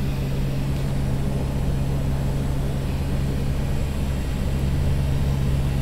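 Cockpit noise of a Convair 580's twin Allison 501 turboprops in flight: a steady drone with a strong, even propeller hum over a low rumble and airflow hiss.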